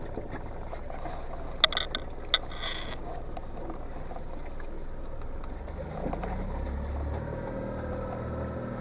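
Boat motor running at low speed, its hum growing louder and its pitch rising slightly about six seconds in. A few sharp clicks and knocks about two seconds in.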